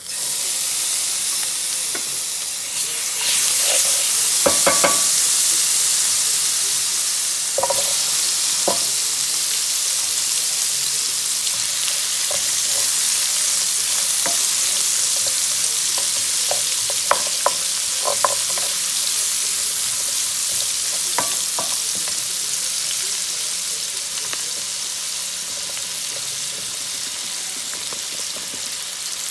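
Sliced onions frying and sizzling in browned pan drippings in a nonstick frying pan, stirred with a wooden spatula that knocks against the pan several times. The sizzle starts suddenly and gets louder about three seconds in; mushrooms go into the pan near the end.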